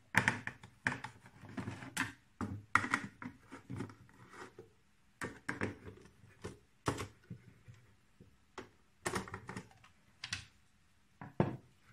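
Irregular light clicks, taps and scrapes of hands handling the plastic housing of an ultrasonic flow meter's host unit as its cover is being opened.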